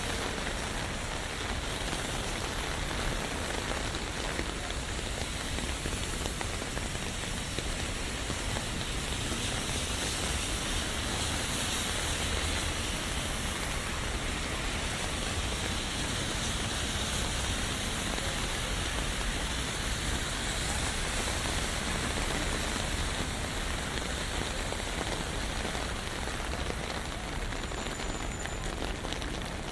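Steady rain falling, with drops pattering on an umbrella overhead and a low city rumble underneath.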